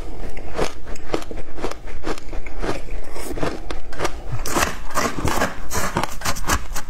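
Close-up chewing and crunching of shaved ice with passion fruit pulp and seeds, picked up by a clip-on microphone, in a dense run of short crackly crunches. From about four seconds in a metal spoon scrapes and scoops through the ice in the tray, and the crunching grows thicker and brighter.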